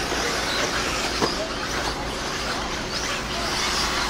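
Eighth-scale electric off-road buggies racing: a steady hiss of motors and tyres, with short high whines rising and falling, and one sharp knock about a second in.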